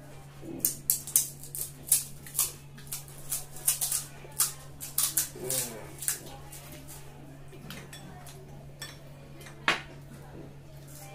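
Crisp cracks of hollow fried golgappa (pani puri) shells being poked open by hand, a quick run of sharp cracks for the first six seconds or so, then only a few single ones. A steady low hum sits underneath.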